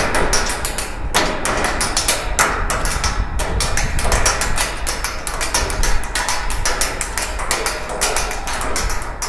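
A dense, irregular run of sharp knocks, taps and thuds, several a second, with a few louder clusters among them.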